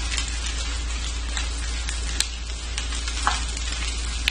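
Rice, egg and vegetables sizzling steadily in hot oil in a wok, with a few sharp scrapes and taps of the stirring utensil as the rice is mixed and its lumps broken up.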